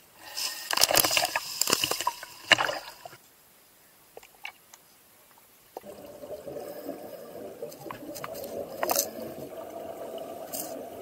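Water sloshing and splashing around a camera at the water's surface for about three seconds. After a short quiet spell, a steady, muffled underwater noise sets in, with scuba divers' exhaled bubbles rising.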